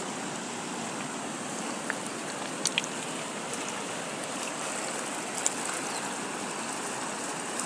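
Steady rush of a fast-flowing, muddy river, with a few light clicks.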